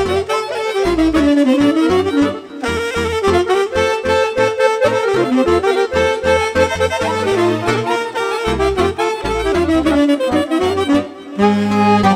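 Instrumental break in a live Romanian folk song: a reed or brass wind instrument plays a winding melody over accordion, with a steady bass-and-drum beat.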